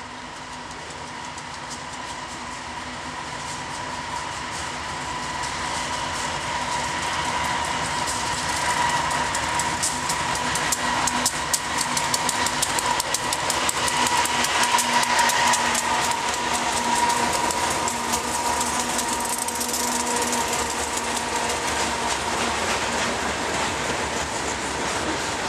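Freight train led by GE diesel locomotives approaching and passing, the engines running with a steady tone and growing louder until they go by about halfway through. Then loaded freight cars roll past with the clickety-clack of wheels over rail joints.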